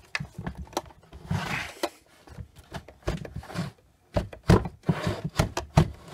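A large flat screwdriver scraping and knocking against the hard plastic case of a Bosch PowerPack 500 e-bike battery as it is levered under the case seam to break the plastic welds. Irregular clicks and knocks, with a brief scrape about a second in and louder knocks in the second half.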